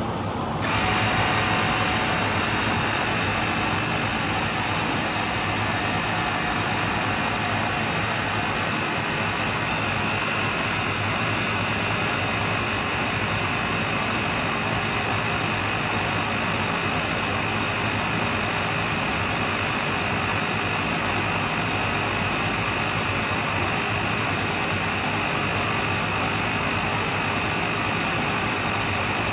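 Air pump running steadily, inflating a freshly plugged mower tire; it starts about half a second in.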